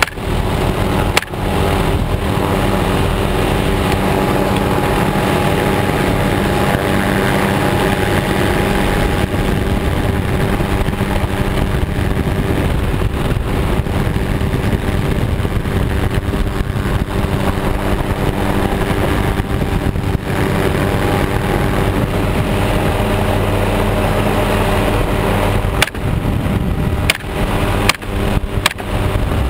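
Helicopter in flight: a steady drone of engine and rotor with a rushing of air, heard from the cabin.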